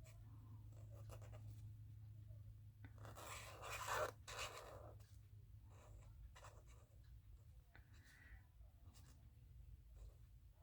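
Pen scratching on paper while lettering by hand, with a louder scratchy stretch in the middle and a few faint ticks, over a faint steady low hum.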